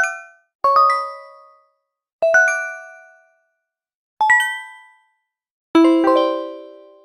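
A run of different notification chime sound effects played one after another, about five in all. Each is a quick cluster of two or three bell-like pinged notes that ring and fade within a second or so, with a short silence before the next. The last chime, near the end, is lower-pitched and rings longer.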